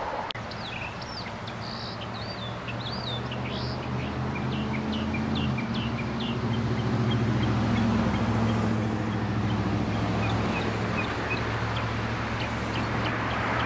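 Birds chirping and calling outdoors, many short notes sweeping up and down in pitch, over a low steady engine drone that grows louder around the middle and then eases off.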